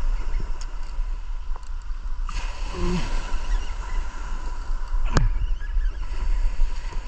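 Wind buffeting the microphone over small surf washing onto a gravel beach, with a short vocal sound about three seconds in and a sharp click about five seconds in.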